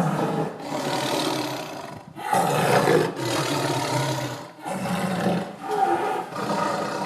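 A big cat roaring over and over: about six long calls of roughly a second each, with short breaks between.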